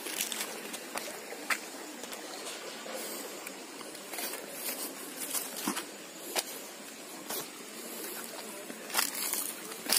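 Footsteps on loose stones and dry leaves: irregular crunches and scuffs, several of them close together in the middle and near the end, over a steady outdoor hiss.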